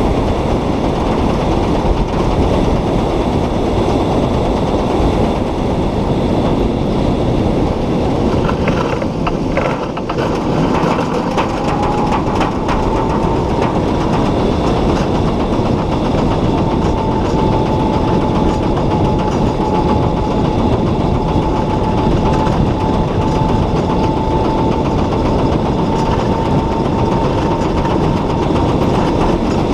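Steady wind and road noise on a solar race car's onboard camera as the car drives at speed. A few rattles and knocks come about nine seconds in, and a faint whine rises a little in pitch near the middle, then holds steady.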